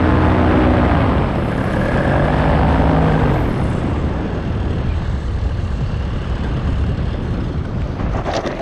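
Paramotor engine and propeller running, then throttled back about a second in and winding down with a falling pitch, leaving a steady rush of wind for the glide in to land.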